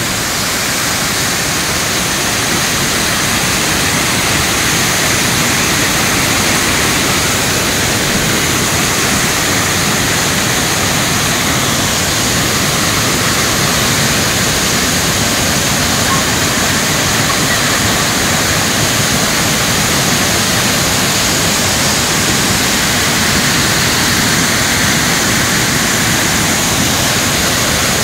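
Heavy waterfall pouring down: a steady, loud rush of water that does not let up.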